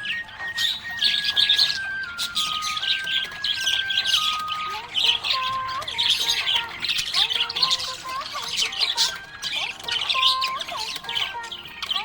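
Budgerigar chirping and warbling in a rapid, continuous stream of short chirps, over background music with a slow, stepped melody.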